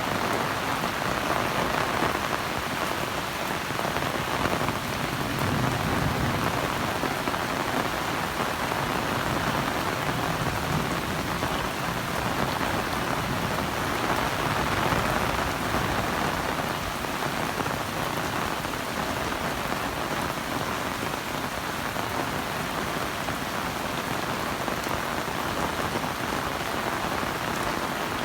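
Heavy rain pouring down steadily, an even hiss of rainfall with no let-up.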